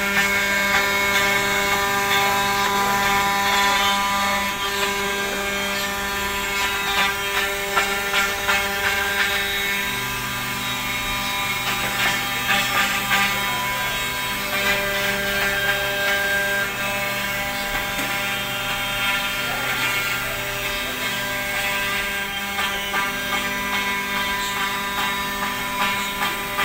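CNC router spindle running at speed while its bit routes through an MDF sheet: a steady multi-tone whine with a rough cutting rasp over it. The lower part of the whine shifts about ten seconds in.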